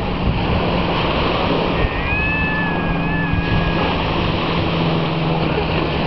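Small waves breaking and washing up on a pebble beach, with wind buffeting the microphone and a steady low motor hum underneath. A thin, high, slightly wavering whine comes in about two seconds in and lasts over a second.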